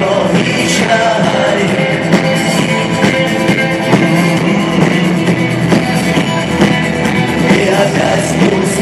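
Live rock band playing, with electric guitars, bass and drums driving a steady beat, and some sung vocals.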